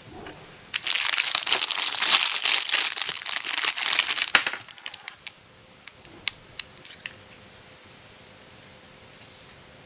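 Thin clear plastic packaging bag crinkling loudly as it is handled and opened, for about four seconds, followed by a few scattered light clicks.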